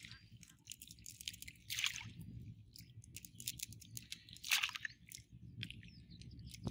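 Wet mud squelching and crackling as a cast net is gathered up and worked over by hand: irregular short squishes and clicks, with two louder squelches about two seconds in and past the middle.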